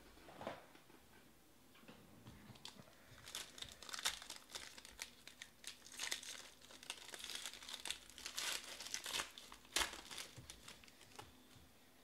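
Foil trading-card pack being torn open by hand, its wrapper crinkling and crackling. The crinkling starts about three seconds in, is busiest in the middle and dies away shortly before the end.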